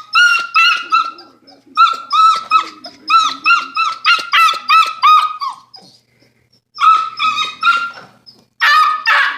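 Young dog yelping in quick runs of short high-pitched notes, about three a second, with a louder, rougher yelp near the end.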